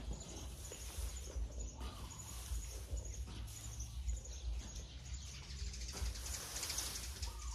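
An Asian elephant feeding from a plastic bucket of fruit, its trunk rustling in the bucket, with faint bird chirps in the background and a low rumble of wind on the microphone.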